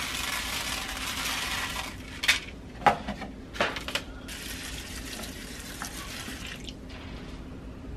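Beet seeds pouring onto a plastic sprouting tray with a dense rattle, then a few sharp knocks of the plastic tray being handled. From about four seconds in, tap water runs into the tray for a couple of seconds, then stops.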